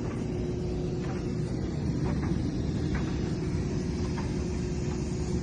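Air handling unit's blower running with a steady low rumble and a faint steady hum, with a few faint light ticks.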